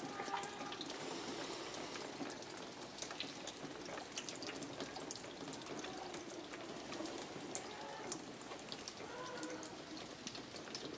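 Leak water running and dripping inside an opened wall cavity: a steady hiss of running water with many quick, irregular drips. The water is coming in through the wall at an unflashed exterior electrical fixture.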